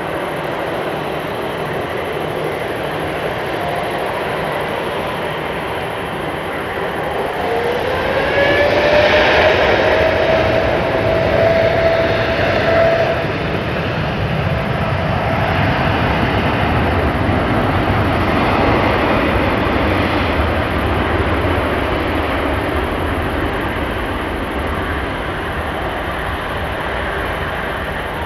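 Jet airliner taking off: a steady engine roar throughout, with a whine that rises in pitch and levels off about eight seconds in as the aircraft is loudest, then a long steady rumble.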